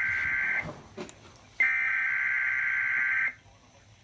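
NOAA Weather Radio SAME (Specific Area Message Encoding) header tones opening a Required Weekly Test: buzzy digital data bursts, each about a second and a half long, separated by gaps of about a second.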